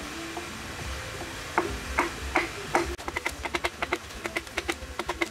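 A small hatchet chopping and chipping into a wooden carving block. Four spaced strikes come about a second and a half in, then a quick run of light chops at about five a second.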